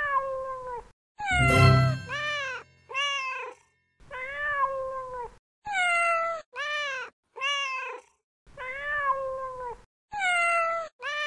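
Cat meowing over and over, about ten separate meows with short pauses between them; the second is louder and harsher at its start.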